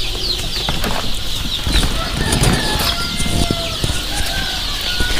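A brooding room full of young desi (gavran) chicks peeping continuously, with a few longer held chicken calls over the top. Close knocks and rustling come from someone climbing a wooden pole ladder.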